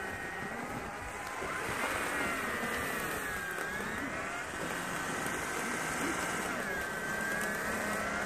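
Motors of 3D-printed miniature RC snow blowers whining steadily as they throw snow from their chutes. The whine dips in pitch twice, about three and a half and seven and a half seconds in, then recovers.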